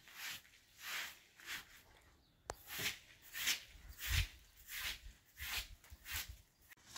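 Short straw hand broom sweeping a carpet in quick, regular strokes, a brushing swish about once or twice a second.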